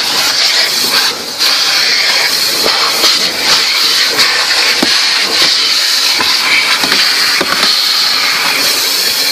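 Automatic car wash dryer blowers blasting air over the car, a loud, steady hiss heard from inside the cabin.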